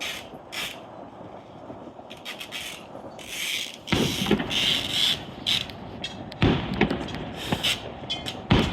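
Fireworks going off: a run of crackling pops with loud booms about four seconds in, again about two and a half seconds later, and once more near the end.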